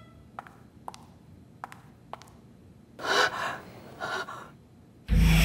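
A few faint clicks, then a woman gasps in fright twice in quick succession. Just before the end a sudden loud burst of music cuts in.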